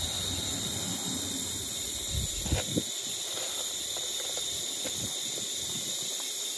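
Steady hiss of steam escaping from a small coal-fired live-steam garden-railway locomotive as it is steamed up. A few light knocks are heard about two to three seconds in.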